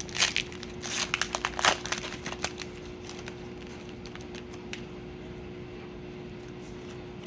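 A foil Pokémon booster pack wrapper being torn open and crinkled, with a quick run of sharp crackles in the first couple of seconds, then only light scattered rustles. A faint steady hum runs underneath.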